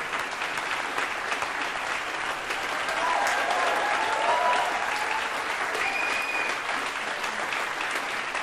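Audience applauding at the end of a performance: dense, steady clapping that swells a little around the middle, with a few brief calls heard over it.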